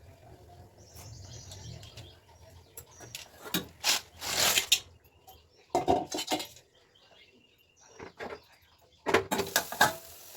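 Kitchen dishes and utensils clattering in three bursts of knocks and clinks, with quieter handling in between.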